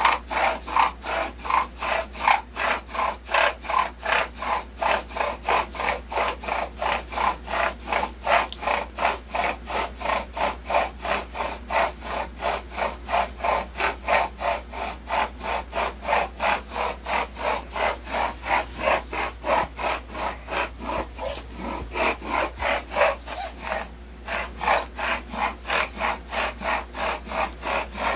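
Bow drill being worked on eastern hemlock: the wooden spindle rubs and grinds in the hearth board's socket in fast, even pulses of about three a second, with a brief break near the end.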